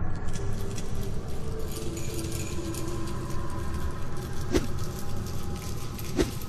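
Film sound effects: a steady low rumble with scattered light clicks, and two sharp knocks, one about four and a half seconds in and another near the end.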